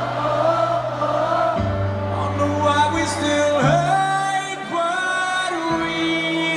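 A live band playing with singing: a sung melody over held bass notes that change every second or two.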